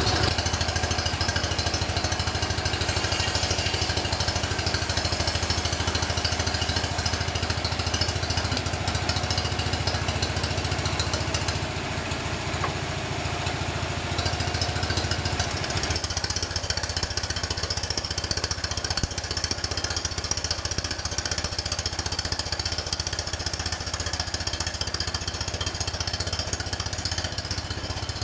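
Sawmill machinery running steadily: a motor's low drone with a high hiss over it. The hiss eases a little before the middle and changes again just after it.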